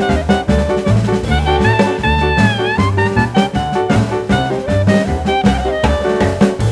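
Upbeat jazz-swing background music with a horn melody over a walking bass and drums.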